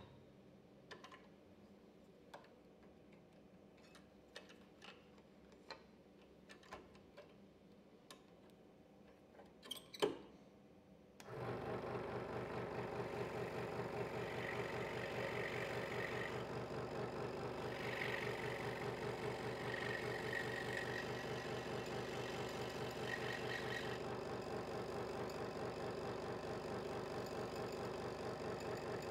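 Hegner Multicut 2S scroll saw, stopped at first, with a few small clicks and handling knocks and one louder knock about ten seconds in. About eleven seconds in the saw starts and runs steadily. The blade cuts thin wood in stretches, adding a higher sawing sound that comes and goes.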